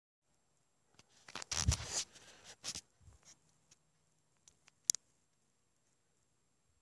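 Handling noise from a phone being held and fingered: rubbing and scraping against the microphone for a couple of seconds, then a single sharp click about five seconds in.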